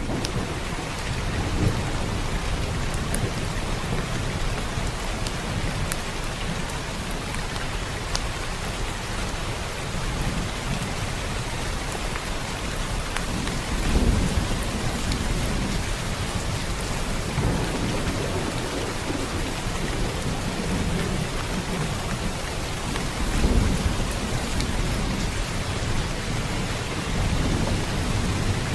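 Steady rain falling, with low rolling rumbles of thunder. The two loudest rumbles come about halfway through and about three-quarters of the way in.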